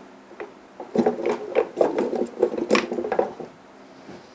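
T56 transmission countershaft gear cluster being worked out from beside the mainshaft gear stack, its steel gear teeth clicking and rattling against the mainshaft gears with short metallic rings. The rattle starts about a second in and dies away about a second before the end.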